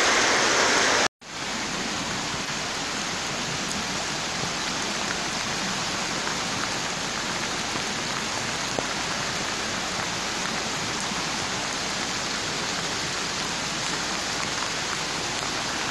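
Steady, even hiss of heavy rain and rushing floodwater. About a second in the sound cuts out completely for an instant and comes back quieter.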